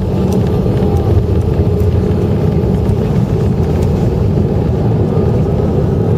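Cabin noise of an Airbus A319 on its landing rollout down the runway: a loud, steady rumble of engines, airflow and wheels, with no change in pitch.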